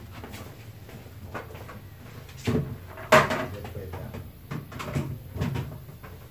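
Several knocks and bumps of something being handled, the loudest a sharp knock about three seconds in, with smaller ones after it.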